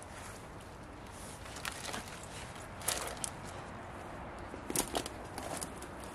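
Footsteps clambering over fallen branches and dry brush, with several sharp twig snaps and cracks, the loudest about three seconds in and again near five seconds.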